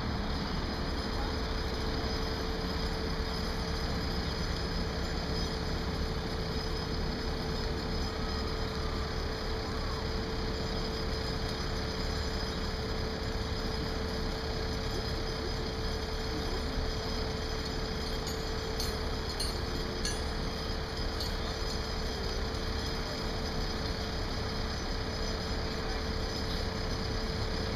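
Steady drone of heavy machinery engines running, with a constant hum throughout and a few faint metallic clinks about two-thirds of the way in.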